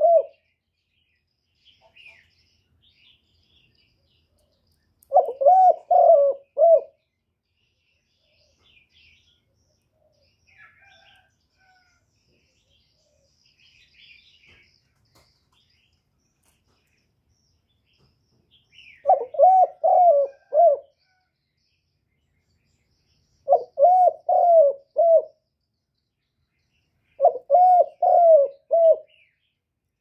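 Spotted dove cooing its song in short phrases of three or four low coos each: one about five seconds in, then three more close together in the second half after a long pause. Faint high chirps of small birds can be heard between the phrases.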